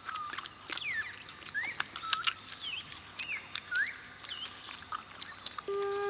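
Tropical forest ambience: short whistled bird calls, each sweeping up or down, come every half second or so over a steady high insect hum and scattered sharp clicks. A flute melody comes in just before the end.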